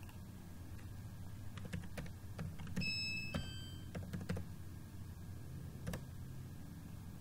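Computer keyboard keys and mouse buttons clicking in a scattered handful of sharp taps, with a brief high ringing tone about three seconds in, over a steady low hum.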